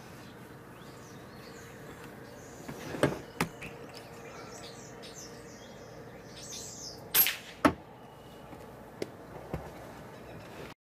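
Starlings chirping, broken by two sharp clicks about three seconds in and, about seven seconds in, the loud crack of an FX Royale PCP air rifle shot, followed half a second later by a second sharp knock.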